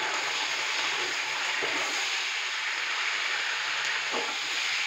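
Raw chicken pieces sizzling steadily in hot ghee with browned onions in an aluminium pot, being stirred with a spoon.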